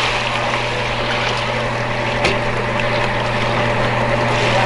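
A steady low motor drone with a constant hum, over a continuous rushing noise.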